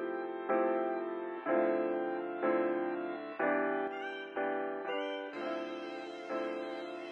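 Background music: sustained keyboard or piano chords that change about once a second.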